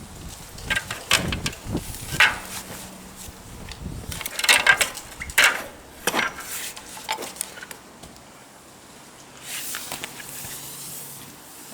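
Irregular knocks and clinks of hand tools and metal parts being handled while working on a motorcycle, loudest in the first half, followed by a faint low steady hum.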